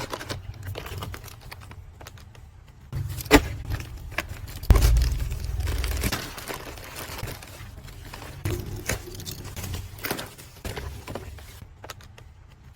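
Snack packaging being handled and unboxed: plastic rustling and crinkling with scattered small clicks and taps. There is a sharp knock about three and a half seconds in and a louder thump just before five seconds.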